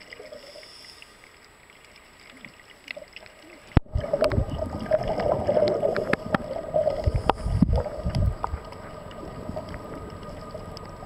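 Underwater sound around scuba divers, with bubbles from their regulators rumbling irregularly. It gets much louder about four seconds in and eases off again near the end.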